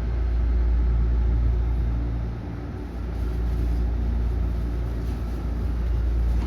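Steady low rumble and hum inside a Hankyu 9300 series train carriage, dipping briefly about two and a half seconds in.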